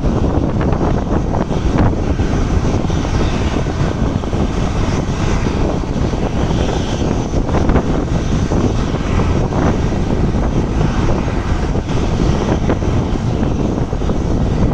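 Boeing 737-700's CFM56-7B turbofan engines running, a loud, steady jet noise with no change in level.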